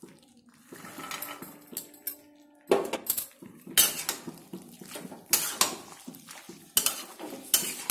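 Metal spatula scraping and clattering against a steel pan while stirring minced chicken and green peas, a run of sharp strokes starting about a third of the way in.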